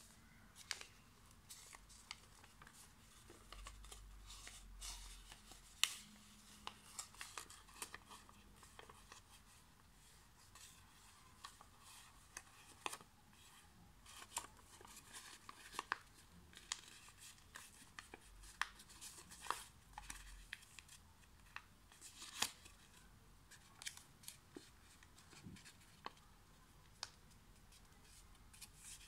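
A square sheet of origami paper being folded and creased by hand: irregular crinkles and sharp crackles of paper.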